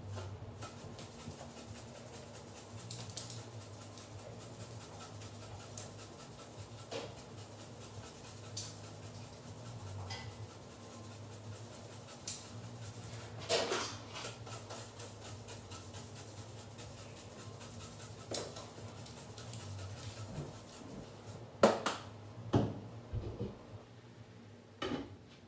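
Cookware and utensils clinking and knocking at a stovetop, with scattered light clicks and two louder knocks about three-quarters of the way through, over a steady low hum.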